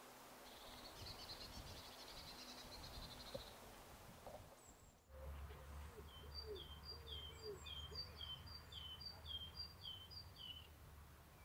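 Great tit singing its two-note song, a high note followed by a lower falling one, repeated about twice a second for some five seconds from about halfway in. Before it, a short high buzzy bird trill, and a faint low wind rumble underneath in the second half.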